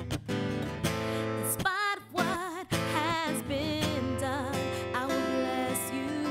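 Live acoustic guitar strumming chords under a woman singing a slow gospel song, with held, wavering notes and wordless vocal runs.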